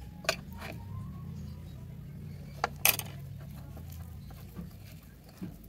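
A metal spoon clinking against a glass bowl while stirring shrimp in flour: a few sharp clinks, the loudest about three seconds in as the spoon is set down. A low steady rumble runs underneath.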